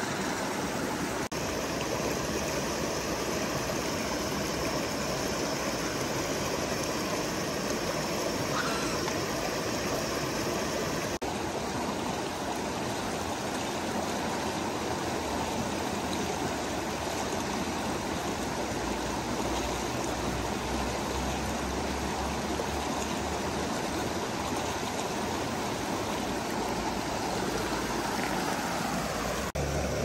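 A shallow, rocky stream rushing and splashing over stones in a steady, continuous flow.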